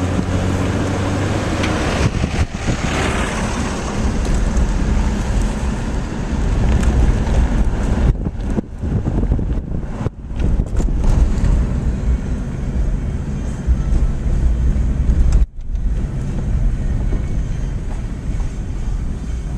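An engine running steadily with heavy wind buffeting the microphone, the level dipping briefly a few times around the middle.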